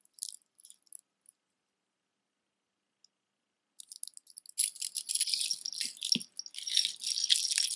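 Costume jewelry clinking and rattling: a few light clicks of hematite beads in the hands near the start, then from about halfway through a steady clatter of beads and chains jostling together as necklaces are moved around.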